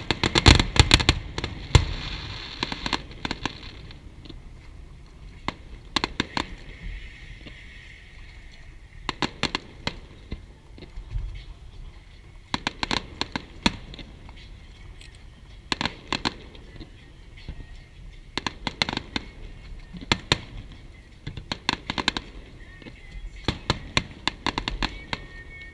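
Fireworks display: groups of sharp bangs and crackling pops every few seconds, densest and loudest in the first two seconds.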